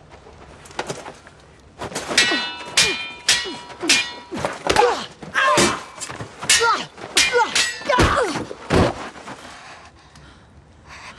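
Steel swords clashing in a fast sparring exchange, the blows coming several a second with a metallic ring after each. Two deep, heavy thuds come near the end.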